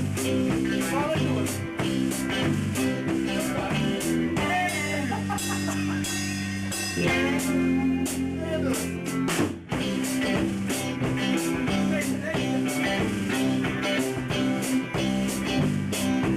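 A live band playing a bluesy rock instrumental passage: a guitar lead with bent, gliding notes over bass and a steady drum-kit beat.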